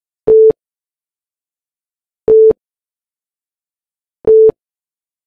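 Countdown timer beeping: three short, loud electronic beeps on one low tone, evenly spaced two seconds apart, one for each number counted down.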